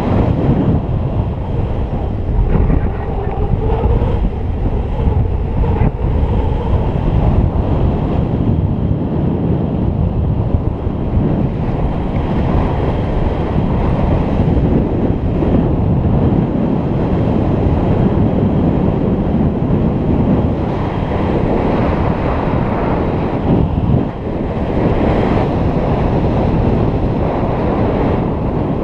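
Airflow buffeting the camera's microphone in paraglider flight: a loud, steady rush of wind noise, heaviest in the low end.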